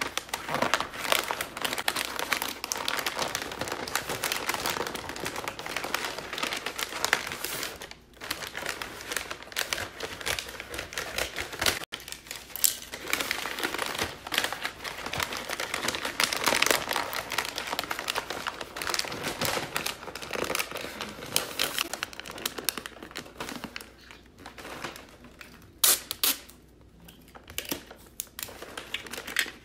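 Wrapping paper crinkling and rustling as it is folded and creased around a small gift box, with a quieter spell near the end.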